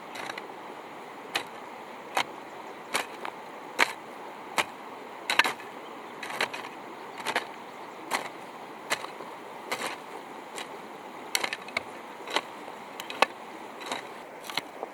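Repeated sharp knocks, roughly one a second, over a steady background hiss.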